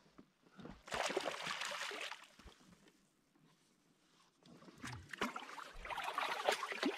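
Water splashing as a hooked fish thrashes at the surface beside a canoe, in two bouts: one about a second in and a longer one near the end as it is scooped into a landing net.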